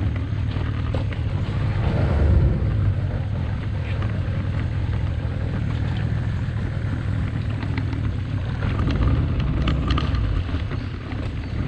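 A small boat's outboard motor running steadily at low speed as the boat creeps along the bank, briefly louder about two seconds in.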